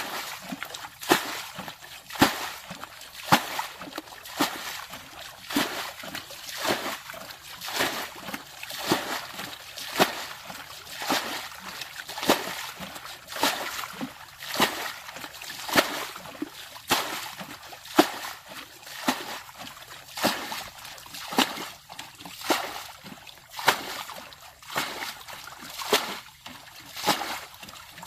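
Water splashing in a steady rhythm, one sharp splash about every second, over and over.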